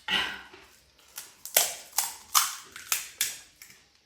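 Crisp panipuri shells cracking and crunching: a quick series of about seven sharp, dry cracks.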